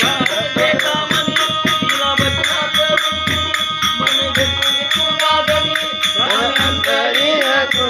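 Instrumental break in a Marathi devotional folk song: a fast, steady drum rhythm under a melody line, with no singing.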